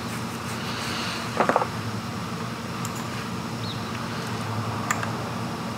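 Steady low background hum of a computer or room fan, with a few computer mouse clicks: a quick cluster of three or four about a second and a half in, and a single click near the end.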